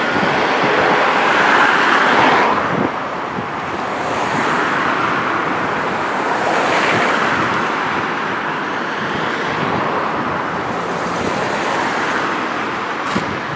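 Road traffic: cars driving past on a city avenue, their tyre and engine noise swelling and fading as each one goes by. No siren is heard.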